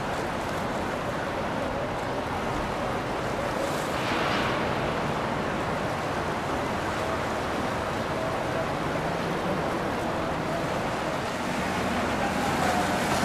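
Steady rush of water and wind on the microphone, with a faint boat engine hum coming in about halfway through.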